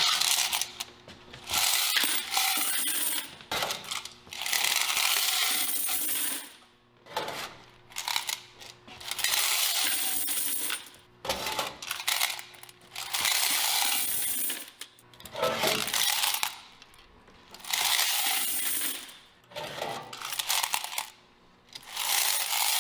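Quarters being dumped out of coin-operated washer and dryer coin boxes: a rush of jangling coins, about ten separate pours of a second or two each with short pauses between.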